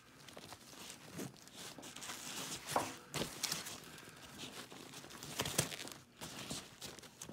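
Hands working a plastic sternum-strap slider onto a nylon backpack shoulder strap: nylon fabric and webbing rustling and scraping as it is pushed and pressed, with a few sharper clicks.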